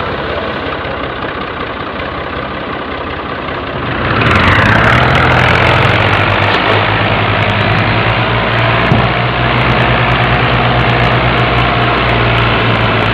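Farm tractor's diesel engine running steadily. About four seconds in it is much louder, working hard under the heavy load of an overloaded sugarcane trolley.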